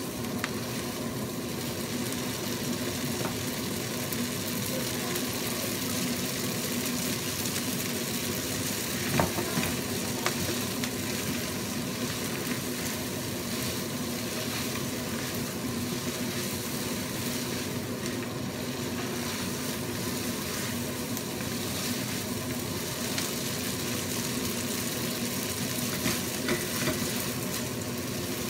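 Spaghetti and spinach sizzling in a hot nonstick frying pan while being tossed and stirred with metal tongs. A few sharp clicks of the tongs against the pan come about nine seconds in and again near the end.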